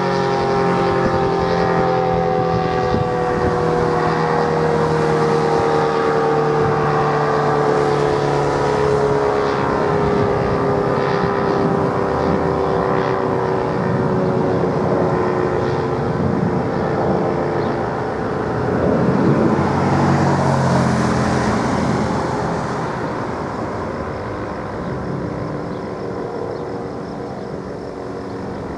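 ACA Cyclone 125 outdoor warning siren winding down at the end of its steady alert tone, its pitch sliding slowly lower and fading out over about the first half, against steady road traffic noise.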